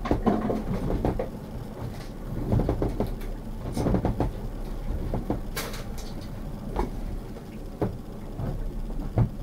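Boat on the water with a steady low rumble of wind and water, over which come irregular knocks and rattles of fishing gear and boat fittings.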